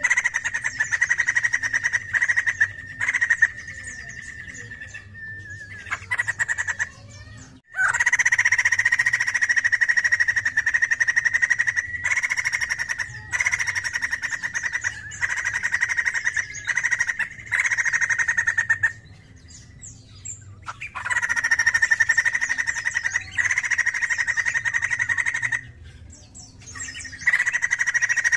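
White-crested laughingthrush calling loudly in long, rapidly pulsing bouts a few seconds each, with short pauses between them.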